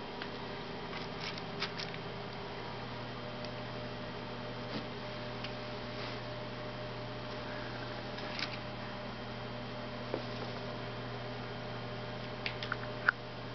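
Steady electrical hum, with a few scattered faint clicks and a sharper click near the end.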